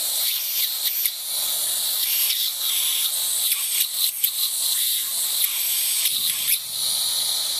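Steady high-pitched hiss, with a few light scrapes and taps as a finger presses on the rusty steel frame.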